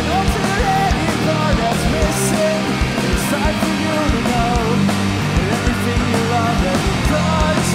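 Live pop-punk band playing an instrumental passage: distorted electric guitar, bass and drums, with a melody line that bends and wavers in pitch over a steady drum beat.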